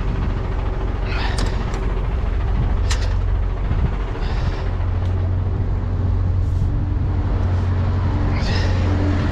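A refrigerated trailer's fridge unit motor running with a steady low hum, with a few short sharp noises over it.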